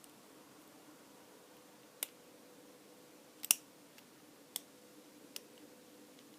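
Lock pick working the pins inside an Abus lockout padlock: four sharp, separate metallic clicks a second or so apart, the loudest about three and a half seconds in, as pins are pushed up and set.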